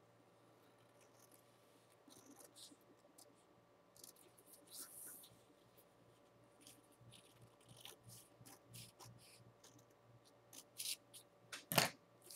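Scissors snipping through a folded sheet of computer paper in short, faint cuts, with a louder single knock near the end.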